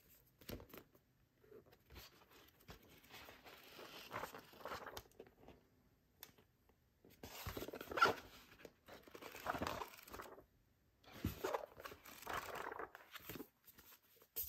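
Paper rustling and crinkling as hands handle a paperback manga volume and a loose paper sheet, in several bursts with short pauses.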